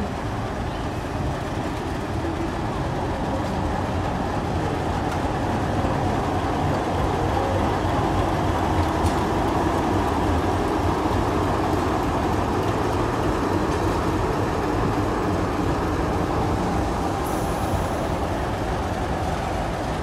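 NSW 44 class diesel-electric locomotive, with its Alco 251 V12 engine, running as it passes slowly and close by. It is a steady, dense rumble that grows a little louder toward the middle, as the engine end draws level, then eases slightly.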